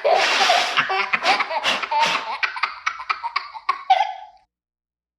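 A baby laughing: a breathy burst, then a quick run of giggles that fades and stops a little after four seconds.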